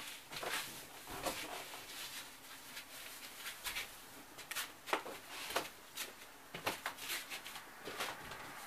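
Irregular light knocks, taps and rustling of a person moving about and handling things inside a small travel-trailer room.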